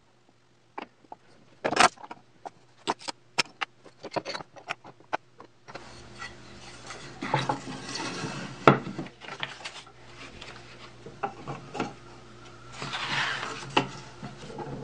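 Wooden parts and tools being handled: scattered light knocks and clicks of plywood pieces, a sharper knock about nine seconds in, and near the end a rubbing swish as a sanding belt is slipped over the grinder's wheels.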